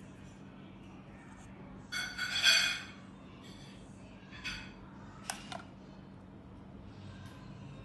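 Metal spoon scraping thick sauce out of a stainless steel bowl: a loud ringing scrape about two seconds in, a shorter one a couple of seconds later, then two quick clinks of the spoon against the bowl.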